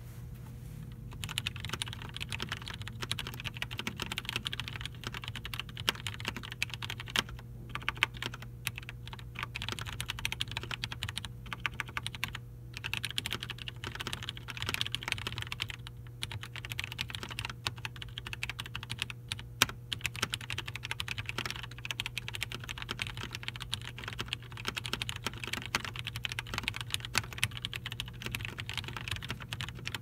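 Fast typing, about 100 words a minute, on a Cherry G80-11800 mechanical keyboard with vintage Cherry MX Brown switches that are lubed and fitted with switch films, under GMK keycaps: a rapid run of keystrokes that starts about a second in, with a few brief pauses.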